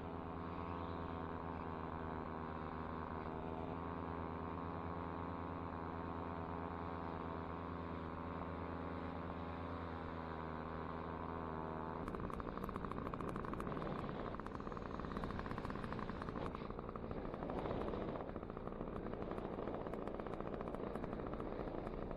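Paramotor engine running at a steady pitch, then about twelve seconds in the sound changes abruptly to a rougher, noisier rush.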